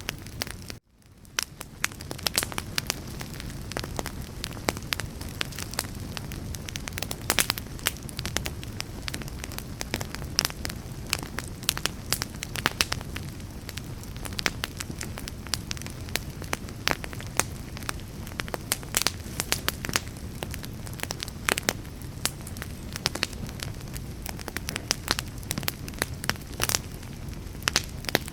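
Wood fire burning, with a steady low rustle under frequent sharp crackles and pops. Just under a second in the sound drops out briefly, then fades back in.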